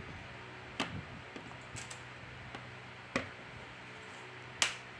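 Plastic back cover of a Samsung Galaxy M31 pressed down onto the frame, its clips snapping in with a few sharp clicks, the loudest near the end. A faint steady hum lies underneath.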